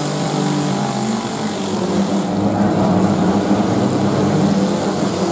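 Demolition derby cars' engines running and revving, with several engines heard at once.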